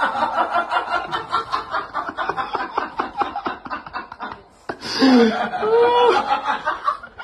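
A person laughing, a quick run of stifled chuckles at about five or six pulses a second. After a short break and a click a little past halfway, a voice laughs again, its pitch rising and falling.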